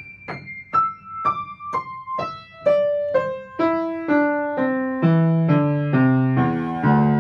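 Piano playing the descending Mi-Re-Do (E-D-C) figure one note at a time, about two notes a second. It moves down octave by octave from the top of the keyboard toward the bass, and the lower notes ring on and overlap.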